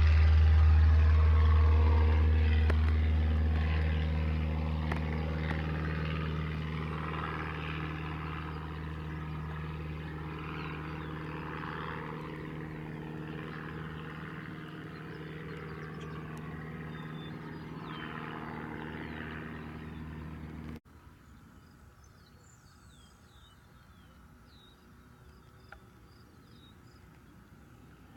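A Cessna 150's four-cylinder Continental O-200 engine and propeller at takeoff power, a steady drone fading as the plane climbs away. About 21 seconds in it cuts off abruptly, leaving faint high chirps.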